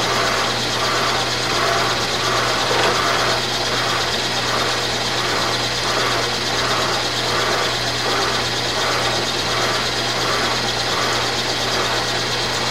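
Vertical milling machine running while its cutter mills a slot in a tough chrome hydraulic-rod steel shaft under flood coolant, fed by hand. A steady motor hum with a regular pulsing cutting sound a little under twice a second.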